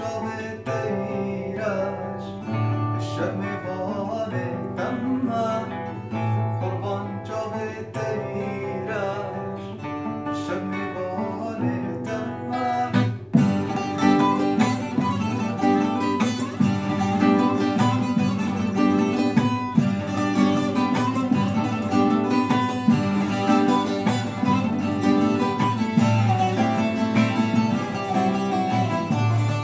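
A man sings to a long-necked saz (bağlama) and an acoustic guitar played together. About 13 seconds in, the accompaniment turns to a busier, denser strumming.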